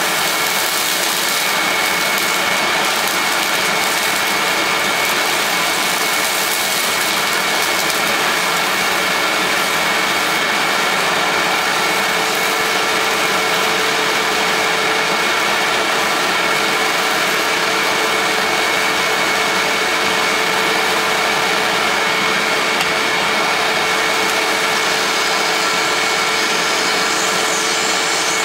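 Hoover WindTunnel U6630 bagless upright vacuum cleaner running steadily with suction through its hose: a rush of air with a steady high whine over it.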